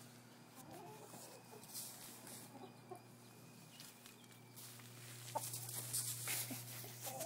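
Backyard hens giving a few low clucks as they peck and scratch for chicken scratch in straw. Rustling and scuffing noise grows louder from about five seconds in.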